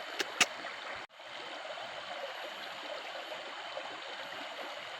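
Steady rush of flowing water. Two short clicks come right at the start, and the sound breaks off briefly about a second in.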